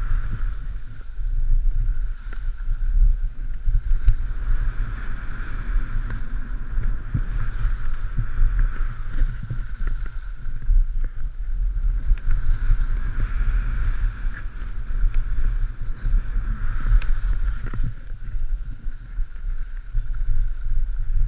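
Wind buffeting the body-mounted action camera's microphone during a downhill ski run, a continuous rumble, with the skis hissing and scraping over packed, chopped-up piste snow.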